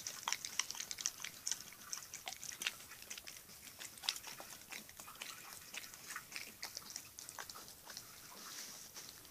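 A dog licking and smacking at a mouthful of sticky peanut butter: rapid, irregular wet tongue and lip clicks. The clicks come thick at first and thin out toward the end.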